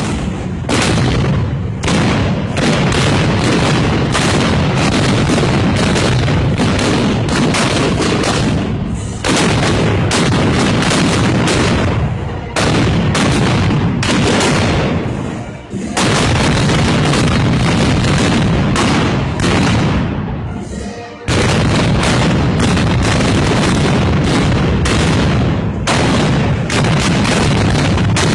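Dense black-powder gunfire from festival arquebuses (arcabuces), many shots overlapping into a near-continuous crackle, with a few brief lulls.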